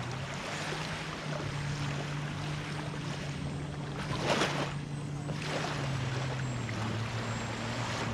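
Electric motor and propeller of an FMS Ranger 1.2 m RC plane droning, its pitch stepping up about a second in and dropping near six seconds, over a steady rushing hiss of wind and surf. Louder gusts of rushing noise come around four and five and a half seconds in.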